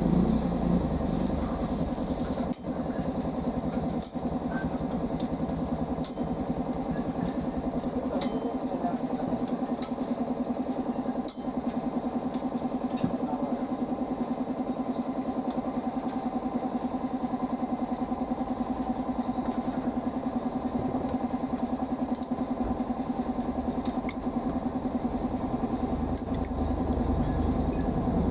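A motorcycle engine idling steadily, with scattered sharp metallic clicks from hand tools on the engine casing.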